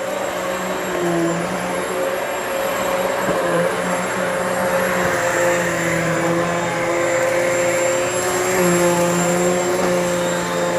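Hoover Elite Swivel XL Pet upright vacuum cleaner running: a steady motor whine over the rush of suction air, its tones wavering slightly in pitch and level.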